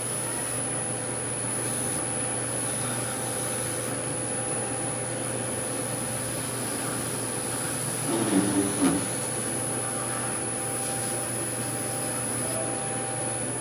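Wood lathe running steadily with a hum and a thin high whine, its motor spinning the goblet blank while a cloth is held to it.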